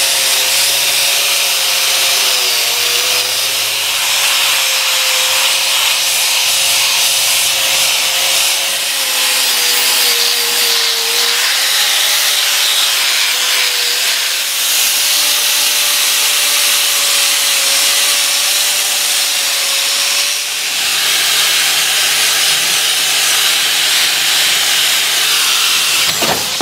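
Angle grinder with a wire cup brush running continuously, scrubbing rust off a steel flywheel and a prop shaft flange. A steady motor whine sits over the hiss of the wire bristles, and its pitch sags briefly a few times under load.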